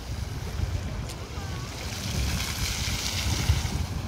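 Wind buffeting the microphone with a gusty rumble, over the steady hiss of a ground-level splash fountain's water jets spraying onto the paving.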